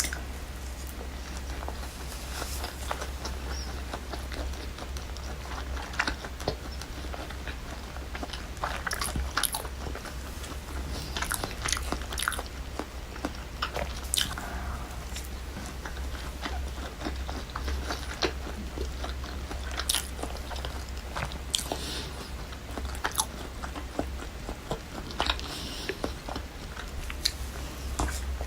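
Close-miked biting and chewing of crispy fried chicken karaage, with irregular crunches of the fried coating throughout.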